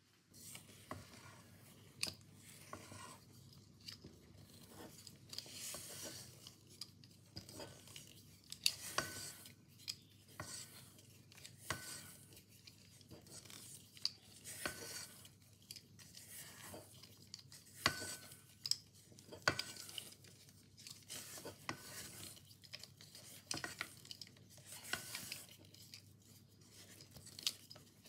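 Silicone spatula stirring and scraping thick cake batter around a stainless steel mixing bowl as flour is mixed by hand into creamed butter, in irregular strokes with occasional sharper knocks against the bowl.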